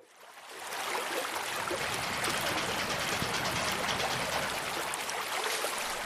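Ambient water sound of a rippling river at the shoreline: a steady rush and trickle of flowing, lapping water, fading in over the first second.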